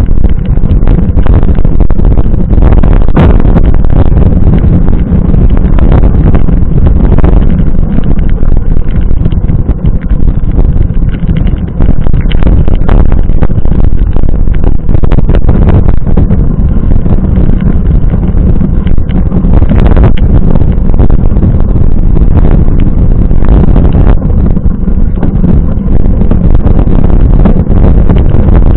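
A mountain bike in motion, heard through a camera's microphone: a loud, distorted rumble of wind buffeting and trail vibration, broken by frequent sharp knocks and rattles as the bike goes over rough ground.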